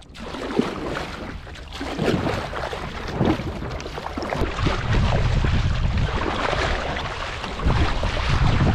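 Kayak paddle strokes through choppy sea water, with splashes and water rushing along the hull of a fishing kayak. Wind buffets the microphone in strong gusts about halfway through and near the end.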